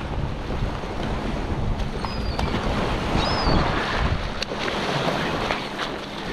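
Wind buffeting the microphone over small waves washing onto a pebble shore, with splashing at the water's edge and a few sharp clicks. Two faint, short, high bird calls come through, about two seconds and three and a half seconds in.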